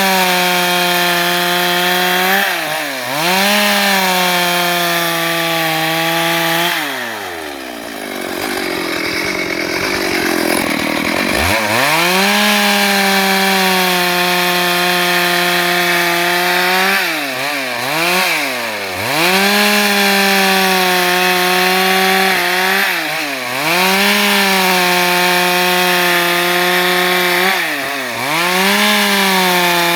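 Stihl MS 382 two-stroke chainsaw running at full throttle while sawing wood into planks. Its revs dip and recover briefly several times, and about seven seconds in it drops to idle for roughly four seconds before revving back up.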